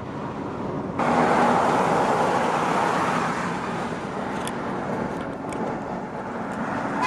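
Traffic and road noise heard from inside a moving car. It jumps suddenly louder about a second in, as a car window is rolled down, then holds steady.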